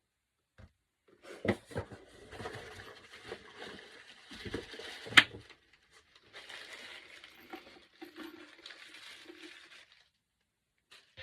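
Plastic packaging rustling and crinkling as a PVC jelly handbag is unwrapped and handled, with a few knocks and one sharp click about five seconds in. The rustling stops about ten seconds in.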